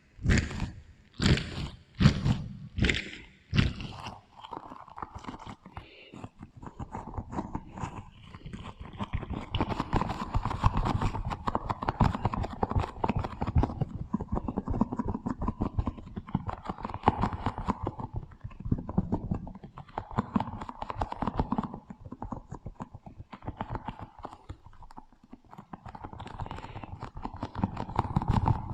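Close-miked crunching and wet clicking sounds from a strawberry and a watermelon, processed with a heavy echo effect. In the first few seconds come sharp strokes about twice a second, then a dense run of small crackling clicks.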